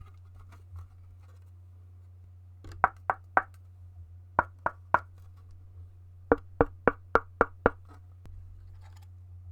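Typing on a GK64X mechanical keyboard with lubed Gateron Red linear switches, DSA keycaps and an anodized aluminium case. A few faint taps come first, then sharp keystrokes in runs of three, three and six, each about a quarter second apart. A low steady hum runs underneath.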